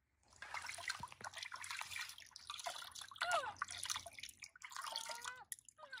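Water splashing and dripping as a baby macaque is washed by hand in a plastic basin, with the baby's short, high, sliding calls about three seconds in and again near the end.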